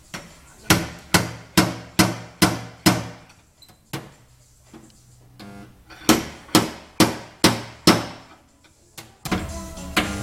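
Hammer blows on a Jeep Grand Cherokee door panel during dent repair, struck in quick runs of five or six at about two a second, with short pauses between the runs.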